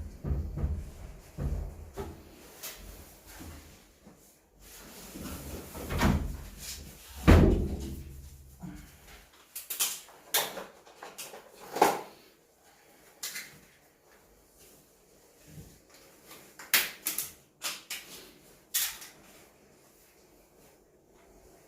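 Irregular knocks, clunks and clicks from hands working on a washing machine during its installation, with a few heavier thuds in the first half and lighter, sparser clicks later.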